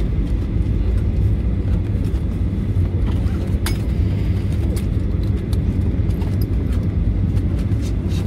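Steady low rumble of an airliner cabin, with scattered small clicks and rattles.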